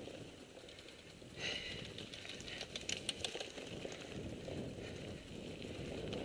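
Mountain bike rolling along a dirt and gravel track: a low rumble of tyres with scattered rattles and clicks from the bike, a few sharper ticks about three seconds in.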